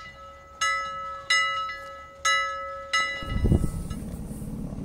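A ship's bell struck in pairs: two pairs of clear ringing strikes, each pair's strokes well under a second apart, as ship's bells are rung. About three seconds in the ringing stops and a low outdoor rumble takes over.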